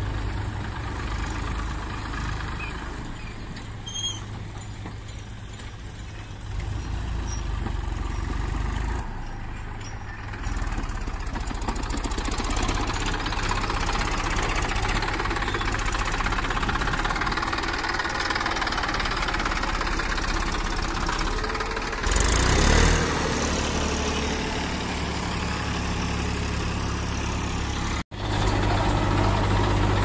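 Diesel tractor engines running as the tractors drive across the site, with a brief louder surge about three-quarters of the way through. After a sudden cut near the end, a tractor and a backhoe loader idle with a steady low hum.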